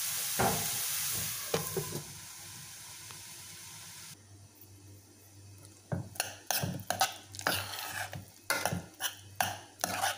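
Mushrooms and onions sizzling in a frying pan, the hiss fading after about two seconds. From about six seconds in, a spoon scraping and knocking against a stainless steel pot as mashed potatoes are stirred, two to three strokes a second.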